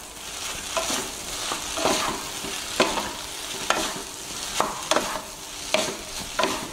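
Boiled noodles with egg sizzling in a frying pan while a wooden spatula stirs and tosses them, knocking against the pan about once a second over a steady hiss.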